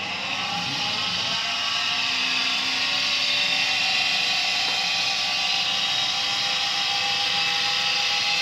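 Viessmann Vitodens 100 boiler's combustion-air fan spinning up, rising in pitch over the first couple of seconds, then running steadily at high speed with a whine over a rush of air: the pre-purge before ignition.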